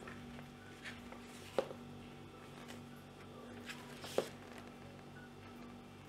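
Pages of a paper recipe booklet being turned by hand: a few faint rustles with two crisper page snaps, about a second and a half in and about four seconds in, over a steady low hum of room tone.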